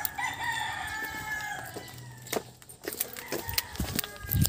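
A rooster crows once: one long call over the first two seconds, its pitch falling slightly toward the end. Then come a few scattered clicks and knocks, and a dull thump near the end as the car door is handled and opened.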